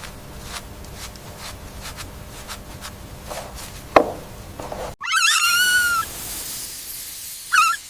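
High-pitched, wavering animal squeal lasting about a second, followed near the end by a shorter squeal. Before them come faint, evenly spaced ticks and one sharp click.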